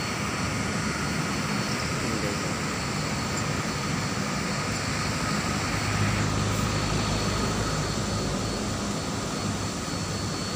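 Steady street traffic noise, with a vehicle engine humming low that grows a little louder about halfway through.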